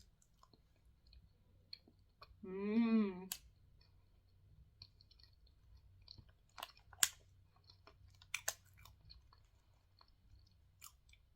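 A person chewing soft, sugar-coated mini fried donuts close to the microphone: quiet, wet mouth clicks scattered throughout, with a short hum about two and a half seconds in and a few sharper clicks later on.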